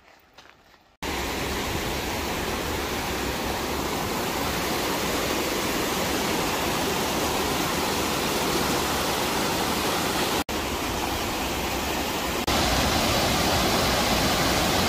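Rushing mountain stream over rocks, then a waterfall pouring into a pool: a loud, steady rush of water that starts abruptly about a second in, drops out for an instant about two-thirds of the way through, and gets louder near the end.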